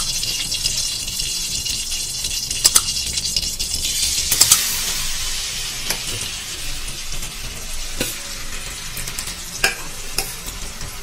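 Hot ghee sizzling in a metal kadhai; about four seconds in, grated pumpkin goes in and the sizzle turns fuller as it fries. A spatula clicks against the pan every second or two as it is stirred.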